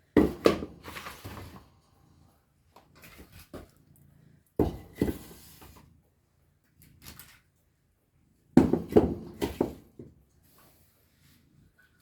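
Knocks and thuds in three separate clusters, each lasting about a second.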